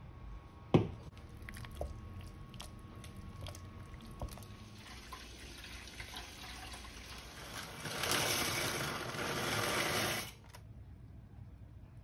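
Kitchen tap running into an empty stainless steel pot, louder for its last two seconds and shut off abruptly about ten seconds in. A single sharp knock comes near the start.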